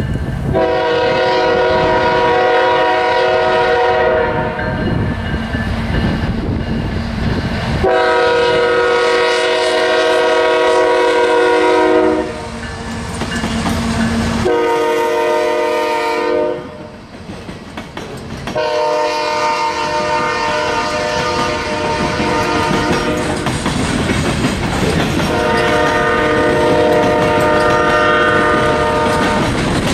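Locomotive air horn sounding a chord of several notes in five blasts: long, long, short, long, long, the grade-crossing signal. Underneath runs the steady rumble and clickety-clack of a moving train.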